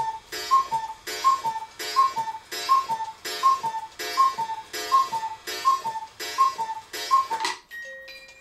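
Cuckoo clock calling: the bellows-blown two-note cuckoo, high then lower, with a breathy hiss, repeated evenly about every 0.7 seconds, some eleven times. Near the end the calls stop and the music box starts plucking single notes.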